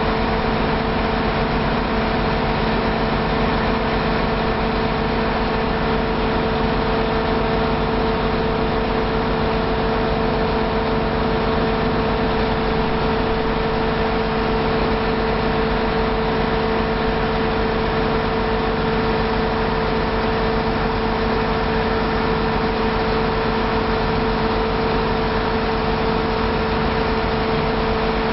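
Heavy engine idling at a steady speed, an unchanging drone with a strong hum.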